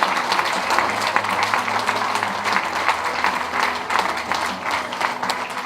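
Audience applauding: many people clapping at once, a dense patter that eases off slightly near the end.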